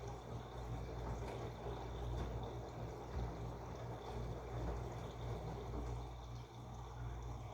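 Washing machine running, with water pouring and sloshing inside the drum over a steady low hum.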